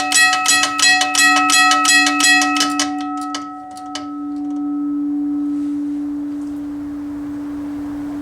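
US&S teardrop railroad crossing bell ringing, its electromechanical striker hitting the gong about four to five times a second. About three seconds in the strikes turn ragged and stop, and the gong's ring fades, leaving a steady low hum that carries on.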